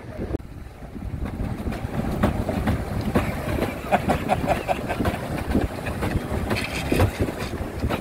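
Pedal boat under way: its paddle wheel churning the lake water while the pedal mechanism knocks, with wind on the microphone. A brief run of short squeaks about four seconds in.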